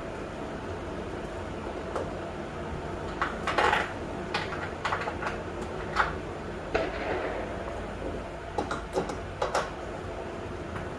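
Irregular metallic clinks and clanks from a hand wrench working the mounting bolts and nuts of a Yost bench vise, a scattering of short knocks over several seconds with pauses between them.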